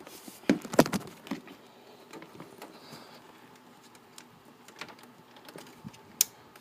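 Hands handling a desktop computer while reconnecting its power: scattered clicks and light knocks, the sharpest about half a second and a second in, and another near the end.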